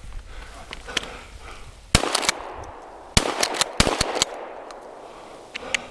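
Two shotgun shots about a second and a quarter apart, each followed by a short echo.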